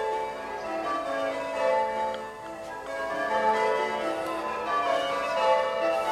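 Church bells ringing changes: a continuous stream of overlapping bell strikes at different pitches, each one ringing on.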